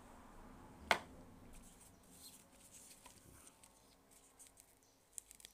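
Bubble wrap and white packing wrap being handled and folded back by hand: faint rustling and crinkling, with one sharp click about a second in and a few small clicks near the end.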